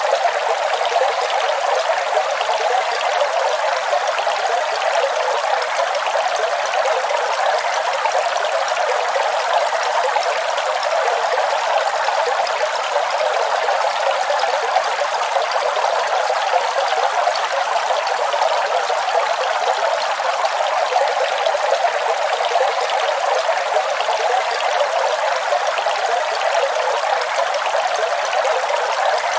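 Waterfall: a steady, unbroken rush and splash of falling water, with no deep rumble underneath.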